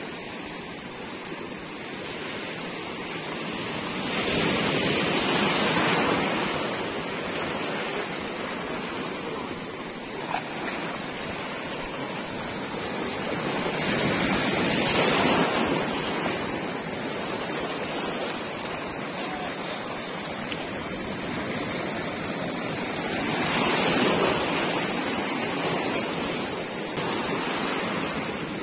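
Ocean surf breaking and washing in the shallows, swelling louder with each incoming wave roughly every ten seconds.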